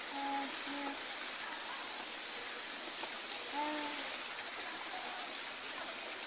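Steady rushing of river water, an even hiss that holds level throughout, with two brief voiced calls over it, one just after the start and one near four seconds in.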